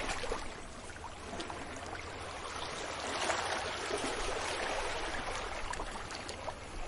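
Small waves washing up a beach: a steady rush of surf that swells a little about three seconds in, with light fizzing and trickling of the water.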